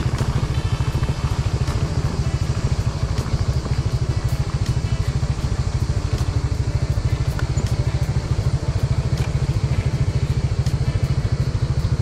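Motorcycle engine running steadily at low speed, a rapid, even low pulsing with no change in pace.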